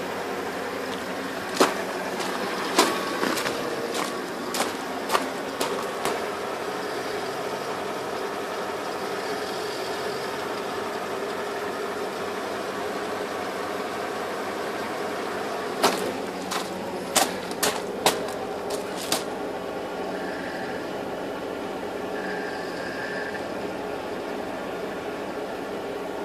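Mercedes CL500's V8 engine idling steadily. Two clusters of sharp clicks or knocks come over the idle, one near the start and one past the middle.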